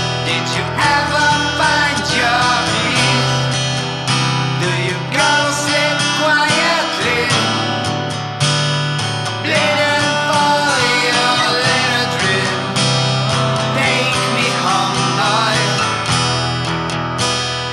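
Music: a passage of a song without sung lyrics, with strummed acoustic guitar and a melody line that bends in pitch over it.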